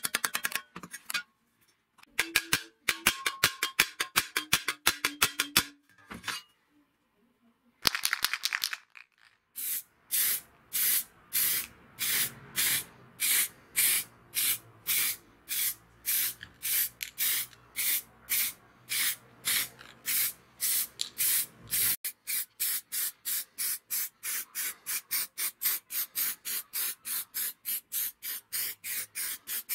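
Rapid light hammer blows on the rim of a rusty steel disc, with a short ringing, stopping briefly partway. Then spray paint hissing in short, evenly repeated bursts, about one and a half a second, quickening to two or three a second later on.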